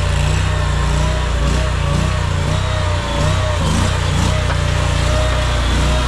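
Engine of an AGT Industrial LRT23 tracked mini skid steer running steadily while the machine is driven over gravel, with a higher whine that wavers slightly in pitch above the low engine hum.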